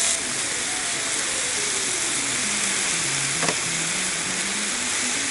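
Meat and onions in red chili sauce sizzling in a frying pan on a portable gas camping stove, stirred with metal tongs. One sharp click comes about three and a half seconds in.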